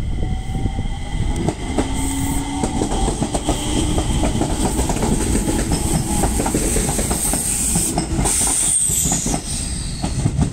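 Enshu Railway electric train set 2008F pulling out of the station and passing close by. Its wheels click over the rail joints, and a low motor whine rises slightly in pitch as it accelerates. Near the end a high whine falls in pitch as the train draws away.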